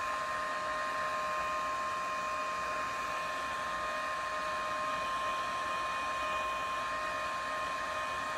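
Small handheld electric fan running steadily: a rush of air with a steady high-pitched motor whine.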